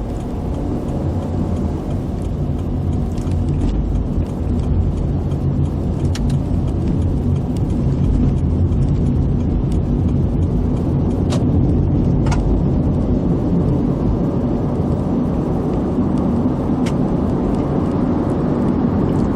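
A car's engine and tyre noise while driving: a steady low drone that grows gradually louder through the stretch.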